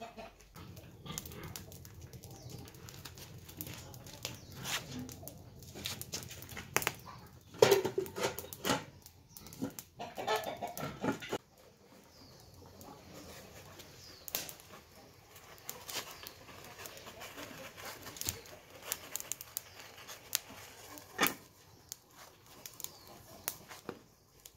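Animal calls, twice, about eight and ten seconds in, over scattered crackles and knocks from a wood cooking fire and the pots on it.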